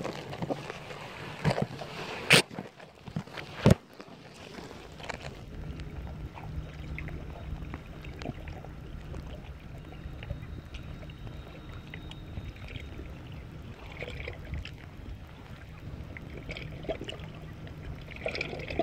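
Muffled water noise picked up by a camera held just below the sea surface: a steady low rumble, with two loud sharp knocks about two and a half and three and a half seconds in.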